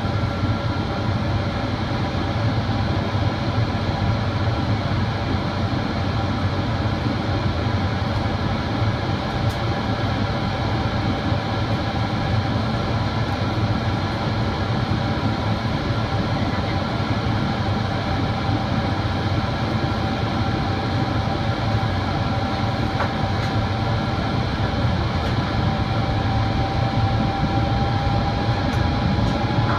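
Airliner cabin noise on the approach to landing: the steady drone of the jet engines and the rush of air past the fuselage, with a thin whine that edges up in pitch near the end.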